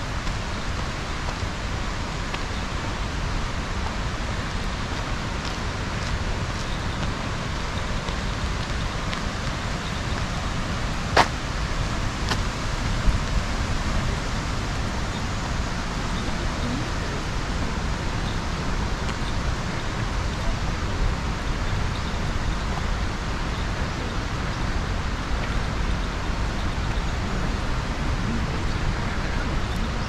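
Steady outdoor background noise, strongest at the low end, with a single sharp click about eleven seconds in and a smaller knock a couple of seconds later.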